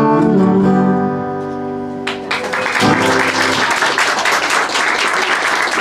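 Final strummed chord on an acoustic guitar ringing out and fading, then applause breaking out about two seconds in and continuing.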